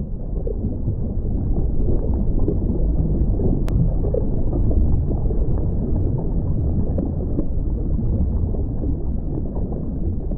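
Loud, steady low rumble with no clear tone or rhythm, its weight in the deepest pitches.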